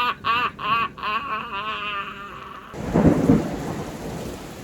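A man laughing in quick rhythmic bursts that trail off, then about three seconds in a sudden loud clap of thunder that rumbles and fades into steady heavy rain.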